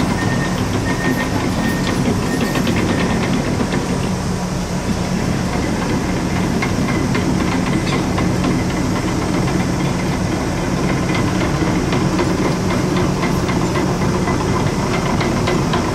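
Diesel engine of a heavy Komatsu earthmoving machine running steadily at work, with a hiss over it and a light, rapid clatter from about six seconds in.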